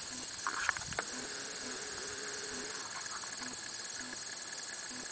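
Steady, high-pitched insect trilling in the grass, with a few soft clicks about a second in.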